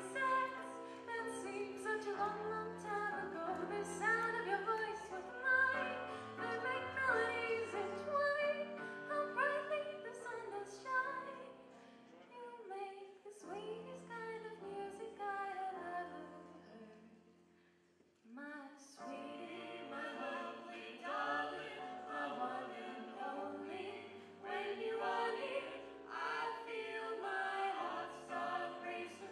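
Live band playing a song with keyboard and drums while several voices sing together. The music dies down almost to nothing about eighteen seconds in, then comes back in suddenly.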